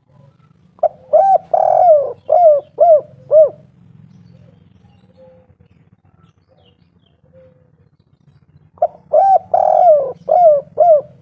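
Spotted dove (derkuku) cooing its 'kuk 3' song: two phrases of about six short, arched coos each, the first about a second in and the second near the end, several seconds apart. A faint low hum runs underneath.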